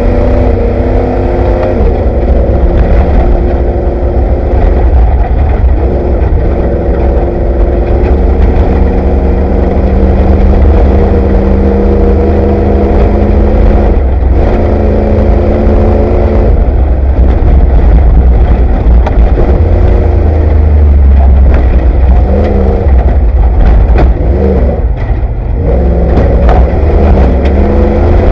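Ford Bronco off-road race truck's engine heard from inside the cab at race pace, its pitch holding, then dropping and climbing again several times as revs change, over a heavy low rumble. Sharp knocks and clatter come through in the last third as it runs over rough desert ground.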